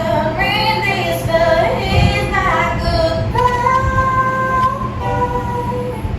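Music: a song with a woman's voice singing a melody over backing music, holding one long note about halfway through.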